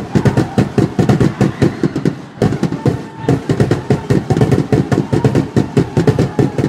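Rapid, loud percussive hits, several a second and irregular, with a steady tone running under them.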